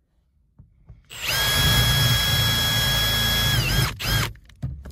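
Cordless drill running at a steady whine for about two and a half seconds as its bit bores through a carpet-covered car trim panel, then winding down and stopping; after a brief blip it starts again near the end.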